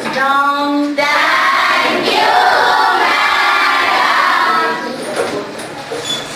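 A class of schoolgirls calling out together in unison, with a long drawn-out syllable that ends about a second in. It gives way to a dense jumble of many voices, which thins out near the end.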